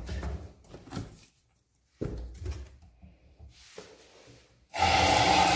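A plastic container and salt-crusted pork being handled, a few scattered knocks and scrapes. Near the end a kitchen tap is turned on and water runs steadily into the sink, to rinse the curing salt off the meat.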